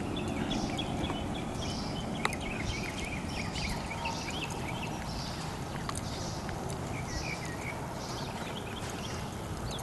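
Birds chirping and calling over a steady low rumble, with the soft hoofbeats of a horse walking on grass.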